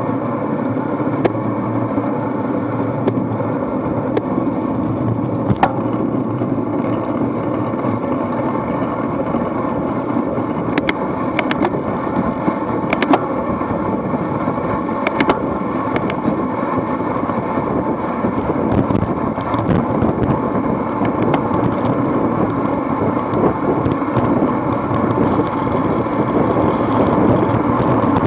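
Steady rush of wind and tyre noise from a road bike riding fast in a pack, picked up by a bike-mounted action camera, with scattered sharp clicks. The noise grows a little louder near the end as the speed rises.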